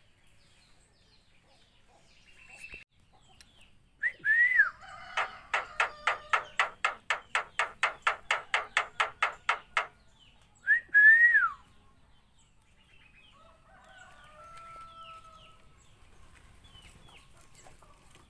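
Javan myna (jalak kebo) calling: a loud call that rises and falls about four seconds in, then a rapid rhythmic chatter of about four pulses a second lasting some five seconds, and a second rising-and-falling call about eleven seconds in, with faint chirps after.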